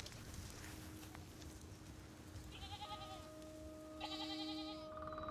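Goats bleating faintly, twice: a short wavering bleat about three seconds in and a louder one about four seconds in.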